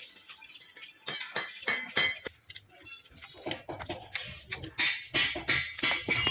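Irregular metallic clinks and knocks of tools and parts being handled on a small motorcycle engine, in uneven bursts with no running motor.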